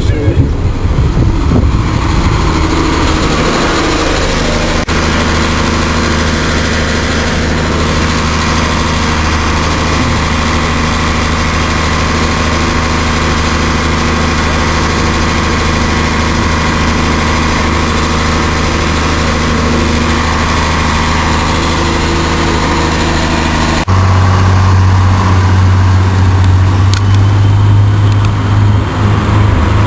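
Diesel multiple-unit passenger train's engine idling at the platform with a steady low hum. About six seconds before the end the hum grows louder.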